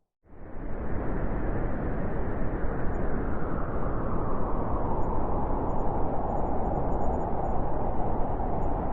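Blizzard wind blowing as a steady rushing howl. It cuts in suddenly after a silent gap of about a quarter second at the very start.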